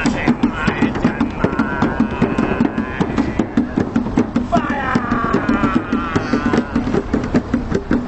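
Fast, steady rhythmic drumming, with people's voices over it.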